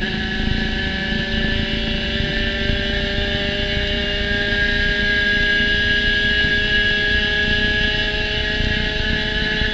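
Spec Racer Ford race car's engine at full throttle. Its revs drop at the very start with an upshift, then the note climbs slowly and steadily as the car accelerates in gear.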